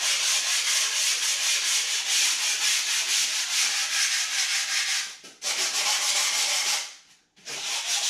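Hand sanding along the edge of a rigid pink foam insulation board with rapid back-and-forth strokes, smoothing the cut edge. The sanding comes in three spells, with a brief pause about five seconds in and another about seven seconds in.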